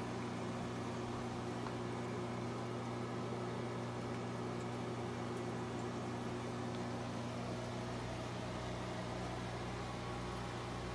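Steady low hum over an even hiss from running aquarium equipment: air pumps and filters driving bubble streams in the tanks.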